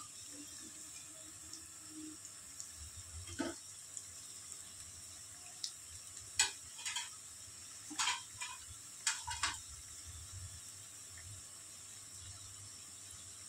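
Potato pakoras frying in hot oil with a steady sizzle, and a metal utensil clinking against the pan several times between about three and ten seconds in as the pakoras are stirred.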